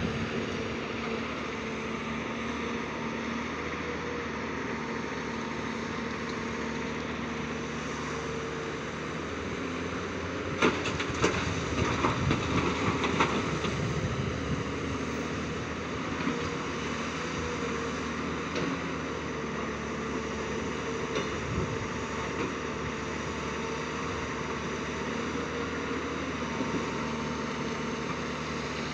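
Tata Hitachi 200 hydraulic excavator's diesel engine running at a steady pitch, with a few seconds of clattering and thuds about ten seconds in as the bucket load of rock drops into the dump truck's bed.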